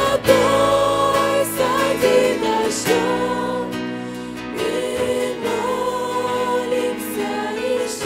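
Mixed church choir singing a Russian-language worship song in long held notes, accompanied by keyboard and acoustic guitar.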